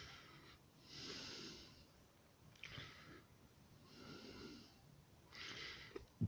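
A person breathing close to the microphone: about four faint, slow, regular breaths.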